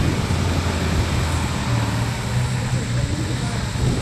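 Toyota Hilux competition truck's engine running hard under load as it climbs a steep dirt hill, its pitch stepping up about halfway through.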